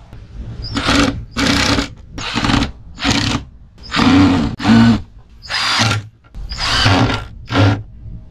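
Electric power drill run in about ten short bursts of roughly half a second each, stopping and starting again; some bursts drop a little in pitch as the motor spins down.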